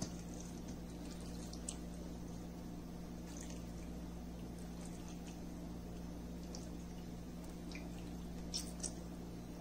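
Wet, freshly washed raw chicken pieces being dropped by hand into a stainless steel bowl of spices and yogurt: a few faint scattered squelches and drips, two slightly louder near the end, over a steady low hum.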